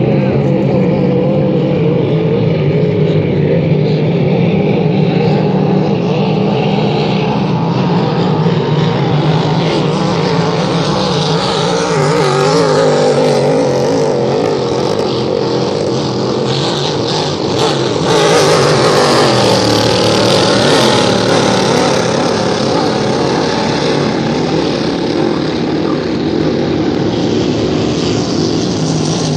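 Grand Prix racing hydroplanes running flat out around the course, a loud steady engine drone whose pitch wavers, growing a little louder past the middle.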